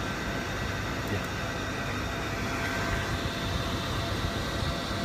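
Steady room noise with a faint, constant machine hum.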